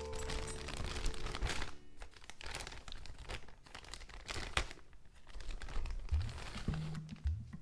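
Packaging crinkling and rustling in irregular crackles as items from a car speaker kit are unwrapped, with some tearing sounds.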